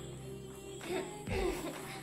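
Soft background music with steady held notes.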